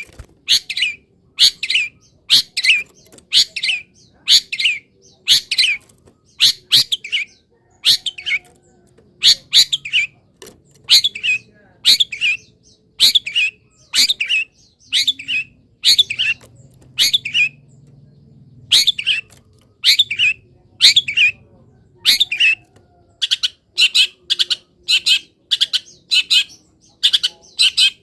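Long-tailed shrike (cendet) calling in a long, fast series of short, sharp, loud notes, about one and a half a second, each dropping slightly in pitch.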